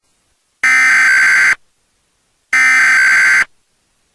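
Emergency Alert System SAME header: two loud, buzzy bursts of digital data tones, each just under a second long, about a second apart, marking the start of an alert broadcast.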